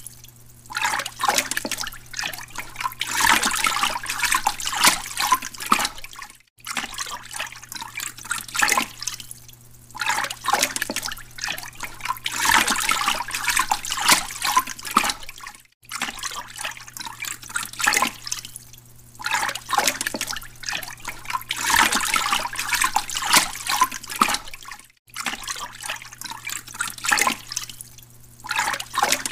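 Running water trickling and splashing, swelling and fading in surges over a low steady hum. The pattern repeats about every nine seconds and cuts out briefly each time, like a looped recording.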